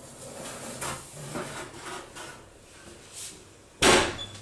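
A baking tray is slid onto an oven rack with a few light clatters, then the oven door shuts with a loud bang near the end, followed by a low steady hum.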